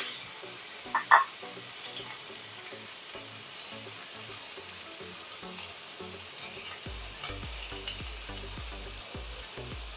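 Char siu sauce-coated pork ribs sizzling steadily as they fry in oil in a wok, with two short knocks about a second in.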